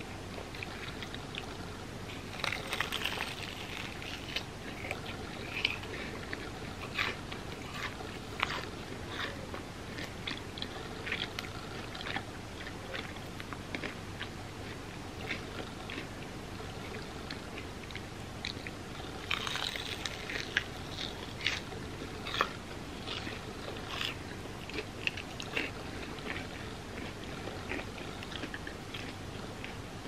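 Close-miked biting and chewing of a crisp-edged hotteok, a Korean sweet filled pancake. Clusters of crunchy bites come about three seconds in and again around nineteen seconds, with scattered wet chewing clicks in between over a steady hiss.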